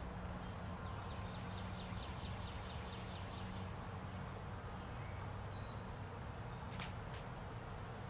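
Songbirds calling outdoors: a quick trill of repeated high notes, then two short falling chirps about halfway through, over a steady low hum. One sharp click about seven seconds in.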